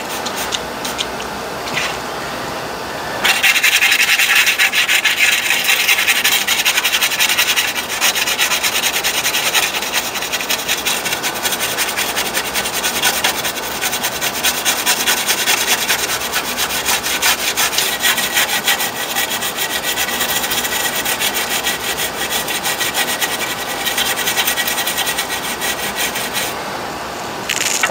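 Toothbrush bristles scrubbing an alcohol-wet instrument cluster circuit board in rapid back-and-forth strokes, starting about three seconds in and keeping on steadily until near the end. The scrubbing works old, crusty solder flux residue off the board.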